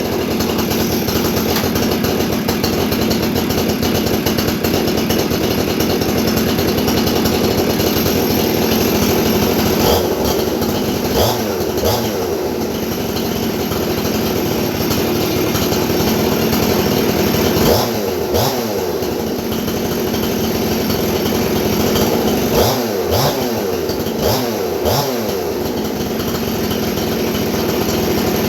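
Ported Jonsered two-stroke chainsaw with a Husqvarna 350 top end, running at a fast idle and blipped a few times, the pitch jumping up and sliding back down each time. The chain races at idle, which the owner puts down to worn clutch springs dragging on the drum.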